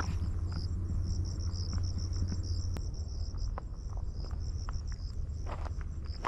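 Insects chirping in a steady, high-pitched pulsing trill, about five chirps a second, with a few footsteps on the trail near the end.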